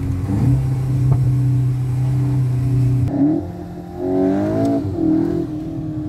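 VW Golf 8 GTI Clubsport's turbocharged 2.0-litre four-cylinder engine holding steady revs for about three seconds, then revving up in quick rising sweeps under acceleration, before levelling off near the end.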